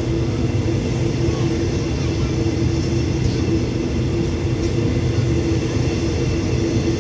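Passenger coaches of an express train rolling slowly past along the platform: a steady rumble of wheels on rail with a constant droning hum.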